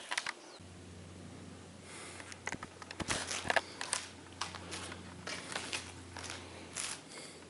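Scattered light clicks and rustles of handling and movement, over a steady low hum.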